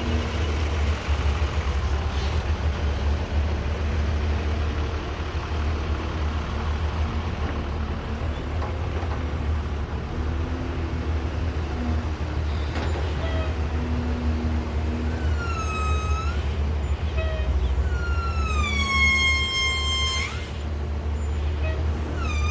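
Caterpillar 312B excavator's diesel engine running steadily with a deep rumble. In the second half a few high squeals cut in, each gliding down in pitch then levelling off, the longest lasting about two seconds near the end.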